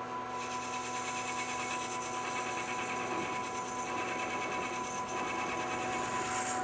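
A metal-cutting machine running steadily with a constant whine while it cuts the turned part off the metal stock, without cutting fluid.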